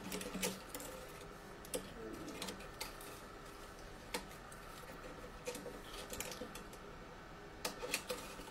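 Faint, irregular small metallic clicks and ticks as cut steel string ends are unwound and pulled off the tuning posts of an acoustic guitar's headstock.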